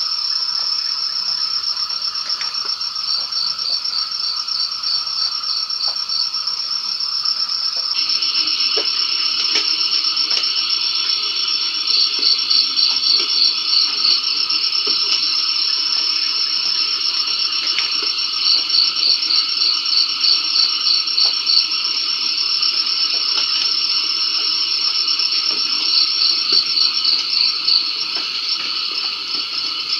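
Night chorus of crickets and frogs after rain: a steady high-pitched insect trill, with bursts of rapid pulsed chirping every several seconds, each lasting a few seconds.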